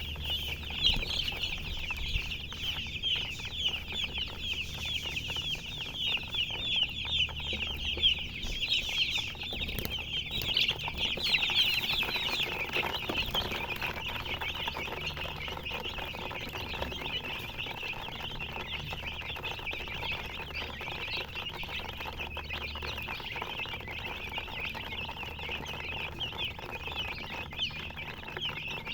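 Chicks peeping non-stop, many short high chirps overlapping in a dense chorus, busiest about a third of the way in.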